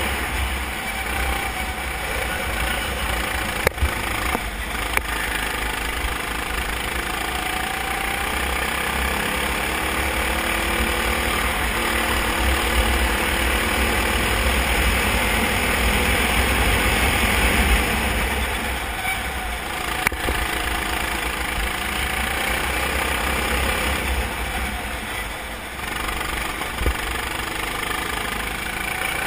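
Racing kart's engine running at speed on track, its note rising and falling through the corners, under heavy wind noise on the onboard microphone. A couple of sharp knocks cut in, about four seconds in and again near twenty seconds.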